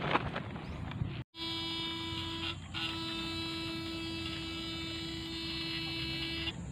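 Battery-powered electrofishing shocker buzzing steadily while its two probes are held in the water to stun swamp eels. The buzz starts about a second in, breaks off briefly once, and stops near the end.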